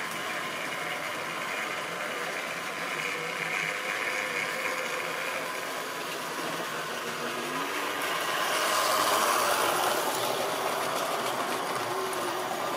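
Tri-ang model train of wagons running over the layout's track and points: a steady rattle of small wheels on the rails. It grows louder and hissier for a couple of seconds about eight seconds in.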